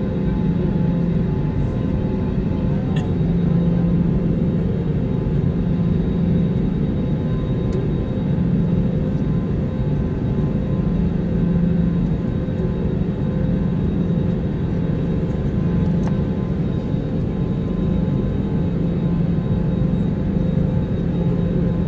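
Airbus A320neo engines at ground idle heard from inside the passenger cabin, a steady hum and cabin air rush with a constant low drone, the aircraft on the ground before takeoff.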